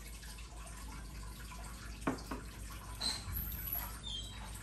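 Soup spoon and chopsticks clinking against a ceramic soup bowl while eating noodle soup: one sharp tap about two seconds in, then a few lighter clinks with brief ringing.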